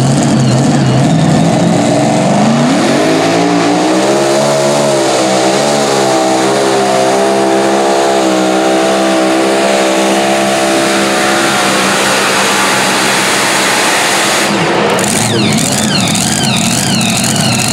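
Mini modified pulling tractor's engine at full throttle on a pull: its pitch climbs about three seconds in and holds high and steady while the tractor drags the sled. Near the end the pitch drops away, then rises and falls in quick wavering revs as the tractor stops.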